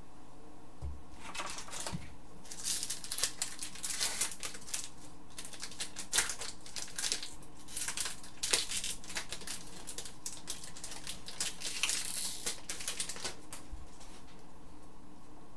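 Hockey trading cards being handled and flipped through by hand, with a foil card-pack wrapper crinkling: a dense run of quick rustles and clicks that dies away a couple of seconds before the end.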